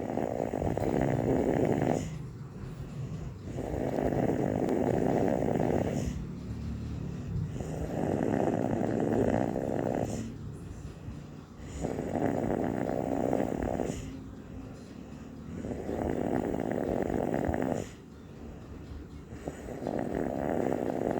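Snoring in a slow, even rhythm: one snore of about two seconds roughly every four seconds, six in all, with quieter breathing between.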